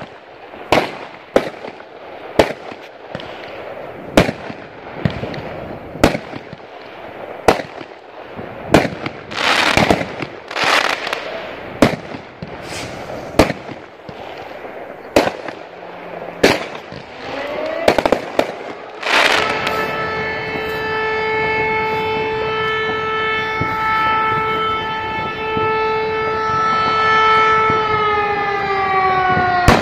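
Fireworks going off: sharp bangs about once a second, with crackling bursts around ten seconds in. About nineteen seconds in, a siren starts and holds one steady tone, then begins to fall in pitch near the end.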